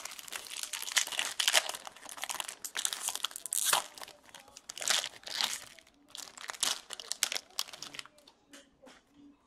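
A trading card pack's black wrapper being torn open and pulled apart by hand, crinkling and crackling in quick irregular bursts, with a few scattered crackles near the end.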